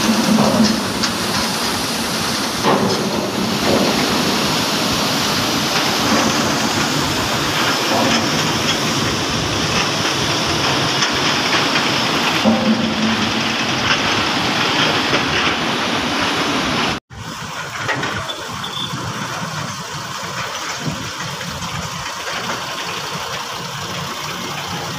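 Mobile crane's engine running steadily. It cuts off for an instant about 17 seconds in, then carries on quieter.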